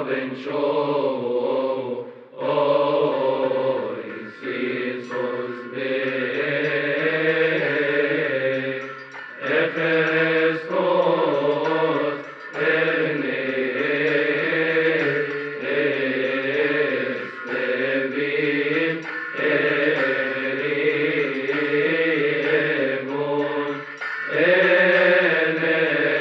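Arabic Christian praise hymn (madih) chanted by a male cantor in long melismatic phrases with wavering pitch, over a steady low drone. The phrases are broken by short pauses every two seconds or so.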